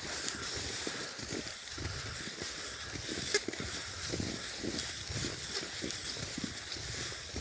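Skis creaking and squeaking on cold, dry snow in a run of repeated strides, over a steady hiss from the snow. One sharp click about halfway through.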